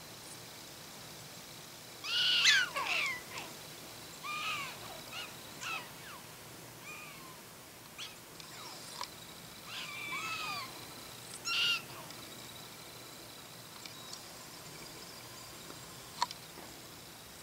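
Black-tailed prairie dogs calling: a run of short, high chirping barks, each sweeping up then down in pitch, coming in clusters, the loudest about two seconds in. A single sharp click sounds near the end.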